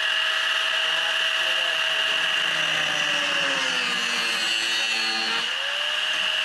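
Angle grinder with a cut-off disc cutting through a thin steel tube: a steady high whine with the hiss of the disc on the metal. The motor's pitch sags under the load through the middle and climbs back near the end as the load eases.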